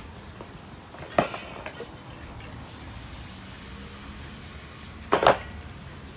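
Metal aerosol spray cans clinking against each other with a short ring, once about a second in and again, louder, near the end as a can is picked up. In between, a spray can hisses for about two seconds.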